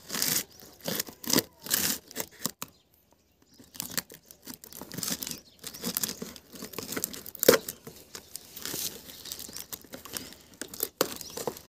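Scissors cutting through packing tape on a cardboard shipping box, with the tape and cardboard tearing and crinkling in irregular bursts. There is a short lull about three seconds in and one sharp loud rip about halfway through.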